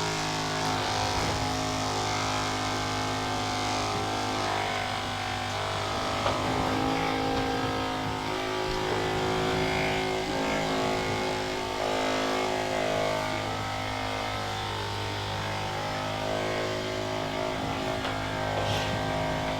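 Handheld percussion massage gun running steadily on the muscles, a constant motor buzz whose pitch shifts slightly now and then.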